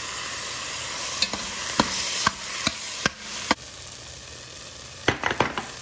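Onions and freshly added tomatoes frying in oil in a stainless steel pot, sizzling steadily, while a steel spoon stirs them and clinks and scrapes against the pot about every half second, then again in a quick run near the end.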